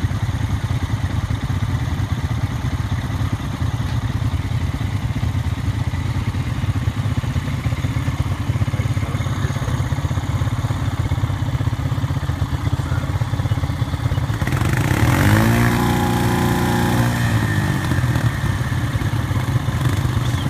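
ATV engine running steadily while the quad sits stuck in deep mud and water. About fifteen seconds in, it revs up and back down once over a couple of seconds, with a brief rush of noise as the revs climb.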